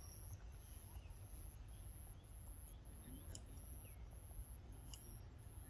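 Faint background: a low rumble under a thin, very high tone that repeats in short pulses, with a few soft clicks about three and five seconds in.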